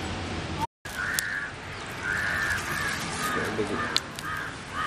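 Crows cawing over and over, a string of short harsh calls about half a second apart, with a couple of sharp clicks among them.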